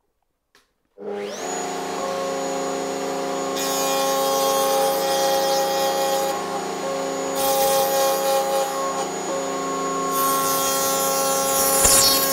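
Table-mounted router switching on about a second in, its whine rising as it spins up, then running steadily at speed. Several stretches of louder, hissing cutting noise as the dovetail bit cuts the dovetail joints in a board clamped in a sliding dovetail jig.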